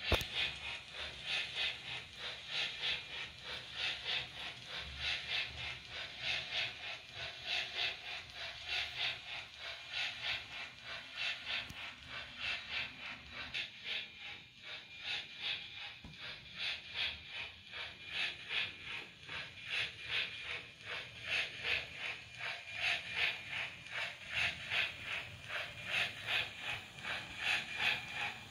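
HO scale model of a South Australian Railways F class steam tank locomotive running with its train, giving a steady mechanical sound with a regular beat of about three a second.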